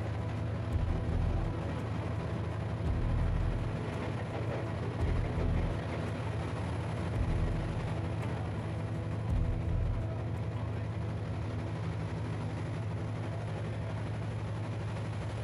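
Passenger train running: a steady low rumble and hum, with irregular deep thumps through the first ten seconds or so, then evening out.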